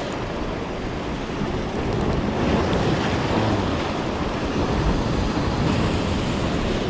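Sea waves washing against shore rocks, a steady rush of surf, with wind buffeting the microphone.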